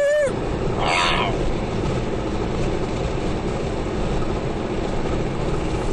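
Steady road and engine noise inside a moving car's cabin, with a brief voice sound right at the start and a short hiss about a second in.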